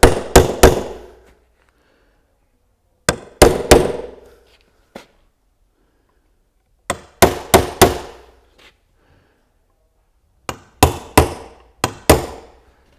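Hammer punching nail heads down into the corner joints of a cedar hive eke. The strikes come in four quick bursts of three to five, a few seconds apart, and each strike rings briefly.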